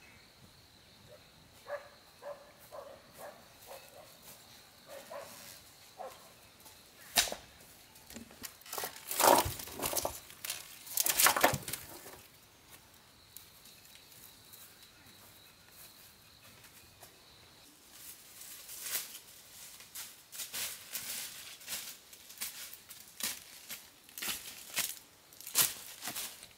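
Irregular rustling, scraping and knocking, loudest and busiest about nine to twelve seconds in. A faint steady high whine comes and goes beneath it, with a few faint short chirps near the start.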